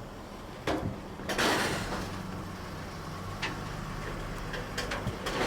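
Nissan Sentra's engine running low while the car sits on a car-hauler trailer, with several sharp metallic knocks from the trailer and a brief loud rushing noise about a second and a half in.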